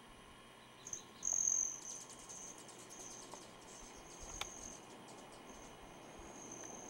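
An insect trilling outdoors: a high, thin, steady tone. It starts about a second in, is loudest briefly just after, and then carries on with short breaks. There is a single small click about four and a half seconds in.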